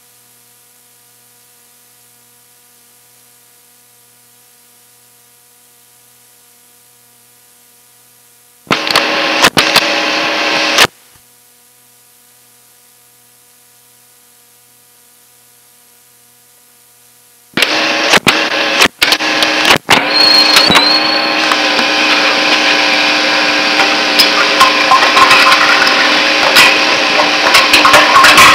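Tape recording of loud, distorted band music with drums. A quiet steady hum comes first; the music cuts in for about two seconds and stops dead, then starts again abruptly about two-thirds of the way through, drops out briefly a few times, and carries on.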